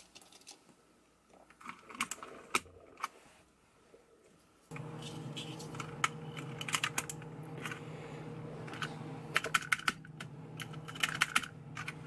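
Plastic keycaps being pressed back onto a mechanical keyboard's switches: a scatter of light clicks and snaps, sparse at first, then in quicker clusters. A steady low hum comes in abruptly about five seconds in, beneath the clicks.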